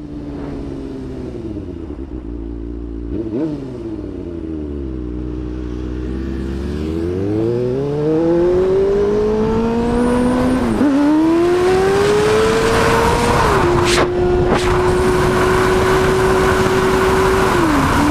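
Motorcycle engine slowing with the revs falling, then accelerating hard through the gears. The revs climb and drop sharply at two upshifts, then the engine holds steady at cruising speed, with rushing wind growing as speed builds.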